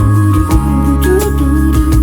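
Background pop music: an instrumental passage with a steady beat, bass and melody, and no singing.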